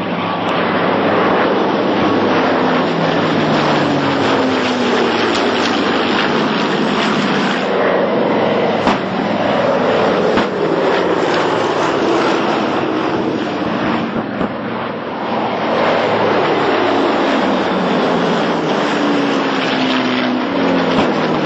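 Four Pratt & Whitney R-1830 Twin Wasp radial engines of a B-24 Liberator bomber droning loudly in a low flypast. The engine pitch slides down several times as the plane passes.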